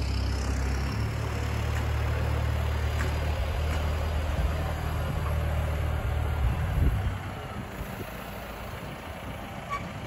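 John Deere farm tractor's diesel engine running steadily as it pulls a loaded round-bale trailer, growing quieter about seven seconds in as the tractor moves off.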